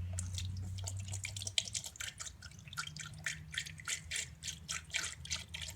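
Coolant being poured into a car radiator, splashing in quick, irregular drips and gulps. A low steady hum lies underneath.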